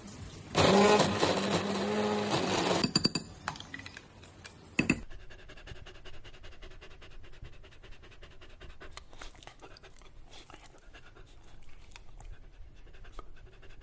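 Braun hand-blender chopper motor whirring for about two seconds as it purees baked carrot and pumpkin with Greek yogurt, then stopping, followed by a few clicks and a sharp knock. After that, fainter rapid dog panting.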